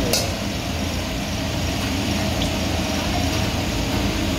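Steady low rushing noise of a gas wok burner running under a steel wok, with a short clink of the steel ladle against the wok right at the start.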